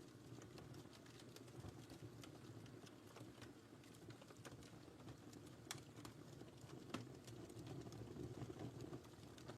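Wood fire crackling in a fireplace: faint scattered pops and snaps over a steady low rumble of the flames, with a sharper pop about seven seconds in.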